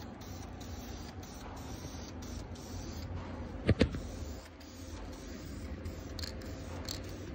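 Aerosol can of primer spraying with a steady hiss. Two sharp clicks a little under four seconds in.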